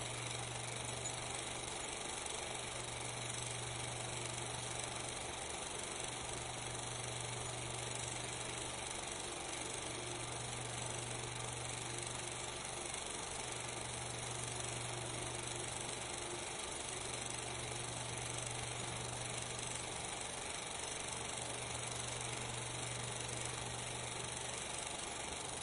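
Steady hiss with a low hum that fades and returns every few seconds. This is the noise track of a transfer of silent 8 mm film, with no sound from the pictured scene.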